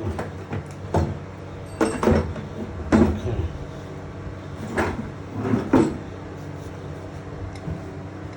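Hands handling pipe fittings and Teflon tape: about five short knocks and scrapes spread over several seconds, over a steady low hum.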